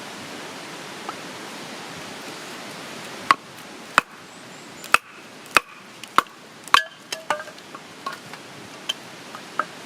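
A run of sharp knocks, about a dozen at irregular intervals, some with a short ring, starting about a third of the way in over a steady hiss.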